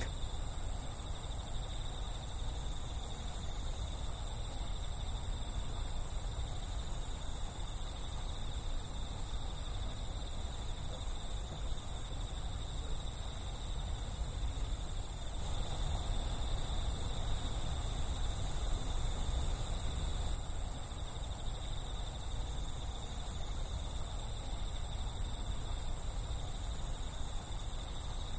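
Crickets or other night insects calling in a steady, continuous high-pitched chorus, over a low, even rumble.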